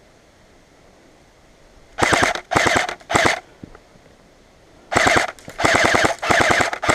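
Airsoft gun firing full-auto bursts of rapid clicking shots: three short bursts about two seconds in, then after a pause three more.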